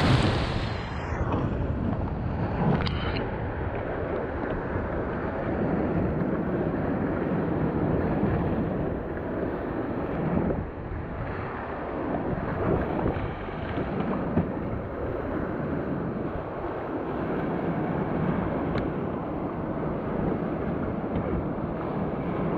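Whitewater rapid rushing around an oar raft, opening with a wave crashing over the boat in a loud burst of spray, then steady rushing water with wind buffeting the microphone.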